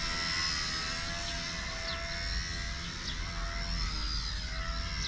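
XK K110 mini electric RC helicopter in flight: a high motor and rotor whine whose pitch wavers gently as the throttle and pitch change.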